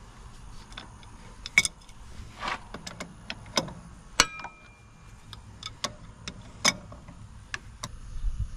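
Irregular sharp clicks and light metallic clinks, a few ringing briefly, from tools and fittings being handled while fitting up a truck's air compressor.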